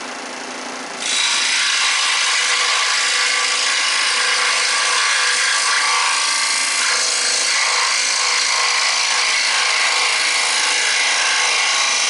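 Switzer 125 W 16-inch electric scroll saw running, its reciprocating blade cutting through thick wood. The sound gets suddenly louder about a second in and then stays steady.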